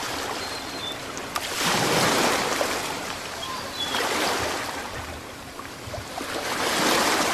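Ocean surf, waves washing in and drawing back in three swells about two to three seconds apart.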